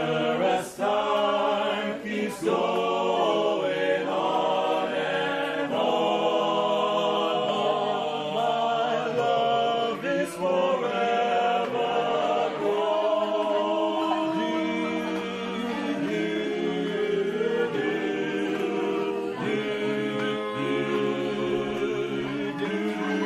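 A mixed choir singing in harmony, with held notes changing every second or two, accompanied by an electronic keyboard.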